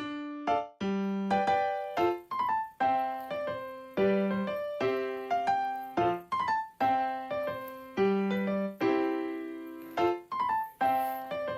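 Background music: a keyboard melody of struck notes that ring and fade, in a steady rhythm.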